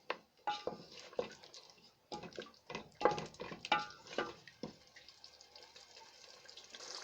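A spoon stirring a pot of wet tomato, meat and broth mixture, knocking and scraping against the pot with several clinks, then going quieter for the last couple of seconds.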